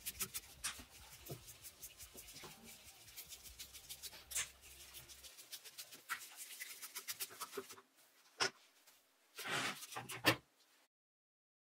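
Hand screwdriver turning screws out of a power-tool housing: a quick run of small clicks and scrapes from the screws turning. Near the end come a few louder knocks and a short rattle as the housing half is pulled apart, then the sound cuts off suddenly.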